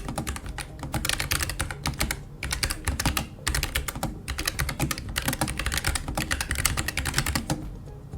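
Fast typing on a Keychron K3 Pro low-profile mechanical keyboard with linear red switches, a dense patter of key clicks in quick flurries with brief pauses. The switches are sold as low-noise but are still a little loud.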